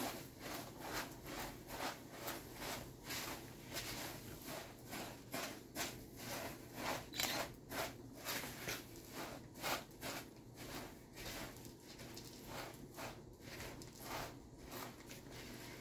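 A silicone spatula stirring Rice Krispies cereal into melted marshmallow in a Tupperware stack cooker pot. It makes soft, irregular crunching and scraping strokes, roughly two a second.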